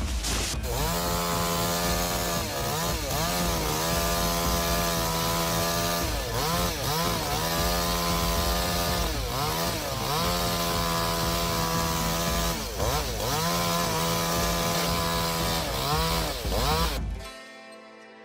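Chainsaw running at high revs while cutting, its pitch dipping and recovering several times as the bar takes load. It cuts off abruptly near the end.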